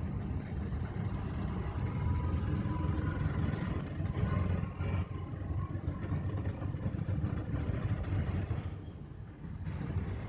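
Steady low rumble of a car's engine and road noise, heard from inside the moving car's cabin. It eases for a moment near the end.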